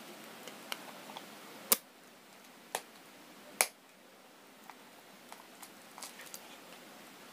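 Small clicks and ticks of metal tweezers prying the camera module off a feature phone's circuit board, with three sharper clicks in the middle, about a second apart.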